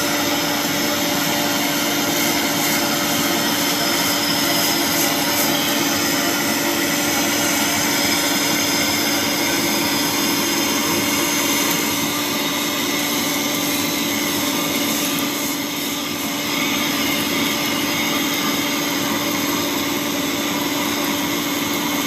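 Polygon pole welding machine running: a steady hum over a constant whooshing noise, with a brief slight dip about two-thirds of the way through.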